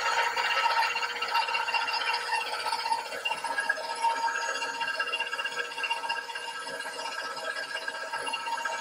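KitchenAid stand mixer running with its flat paddle beating softened butter in the steel bowl, the motor giving a steady whine.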